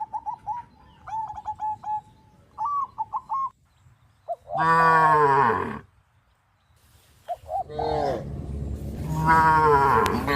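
Cows mooing: one long moo in the middle, then a longer drawn-out moo near the end whose pitch sags. Short high bird chirps come in the first few seconds.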